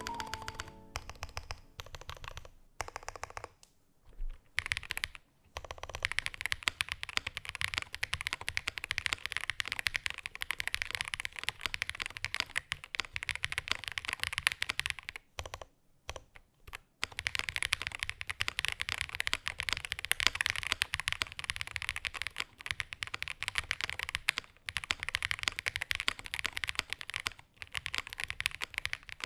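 Typing on an Itou65 aluminium 65% mechanical keyboard with lubed linear switches: fast, continuous key clacks, with brief pauses around four to five seconds in and again about halfway.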